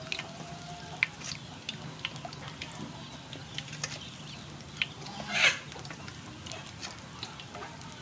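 Wooden spoon stirring thick batter in a stainless steel bowl, with scattered light clicks and knocks as the spoon works through the batter and against the bowl. Chickens cluck in the background. The loudest sound is a short, harsh noise about five and a half seconds in.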